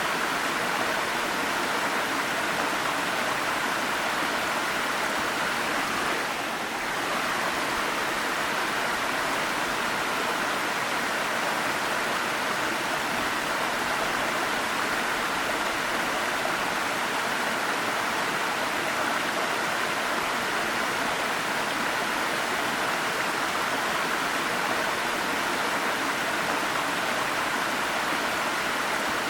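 Waterfall: a steady rush of falling, splashing water, briefly a little softer about six seconds in.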